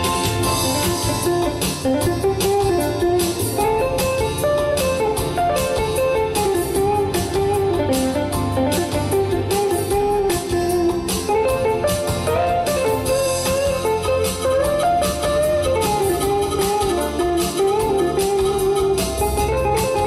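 Live band music: a lead melody with a guitar sound, bending in pitch, over keyboards and a steady drum beat.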